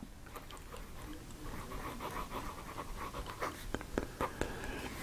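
Wing Sung 3008 fountain pen's fine nib moving across paper as a cursive word is written: a soft scratching with scattered small clicks as strokes start and stop. The nib is smooth and the ink flow excellent.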